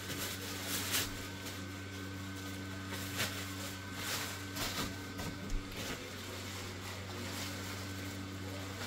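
Plastic bag crinkling and rustling in short bursts as a folded nylon Christmas inflatable is pulled out of it, mostly in the first half. Under it runs a steady low hum from the inflated Tigger's blower fan.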